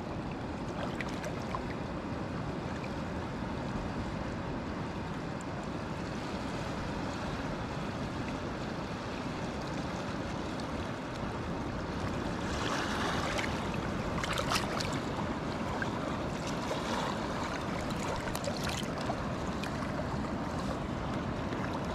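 Shallow sea surf washing steadily, with a stretch of closer splashing in the water about halfway through.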